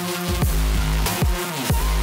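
Electronic dance music with a heavy, deep bass line and repeated falling pitch drops.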